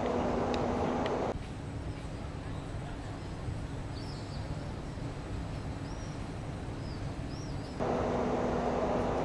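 Outdoor ambience with a steady rumble and a low hum. About a second in it cuts to a quieter background where birds chirp in short, arching calls. Near the end it cuts back to the steady rumble and hum.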